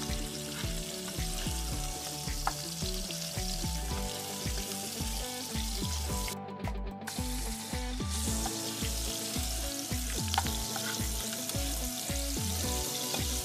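Sweet corn kernels sizzling in melting butter in a frying pan while being stirred with a spatula. The sizzle is steady and drops out for a moment about halfway through. Soft background music with low notes plays underneath.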